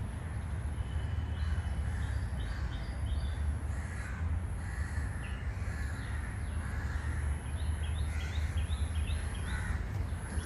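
Crows cawing repeatedly, with other birds calling in short runs of high notes.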